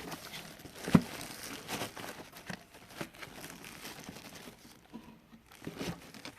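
Bubble wrap and plastic packaging crinkling and rustling as a camcorder is unwrapped by hand, with a sharp knock about a second in.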